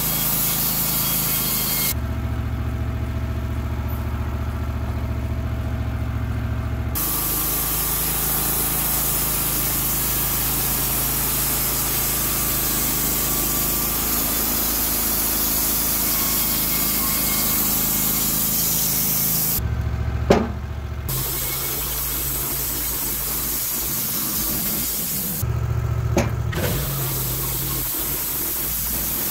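Wood-Mizer LT15 Wide band sawmill running steadily as its band blade saws lengthwise through a log, with two sharp knocks later on.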